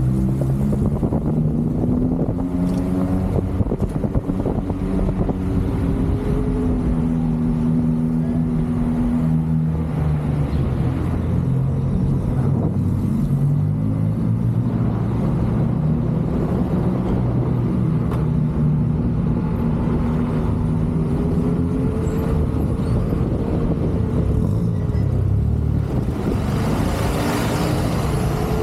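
Steady wind rush on the microphone of an electric unicycle ride, with a humming tone that slowly rises and falls in pitch as the speed changes.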